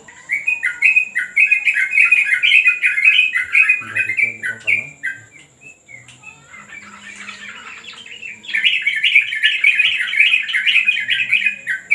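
Yellow-vented bulbul (trucukan) chattering loudly in fast, bubbling runs of notes. There is one spell at the start, a softer lull around the middle, and a second loud spell from about two-thirds of the way in.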